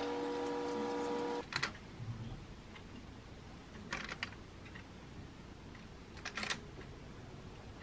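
Steady hum of an air fryer oven's fan, which stops suddenly about a second and a half in. After that, a few light clicks and clinks as food is moved one piece at a time onto a plate.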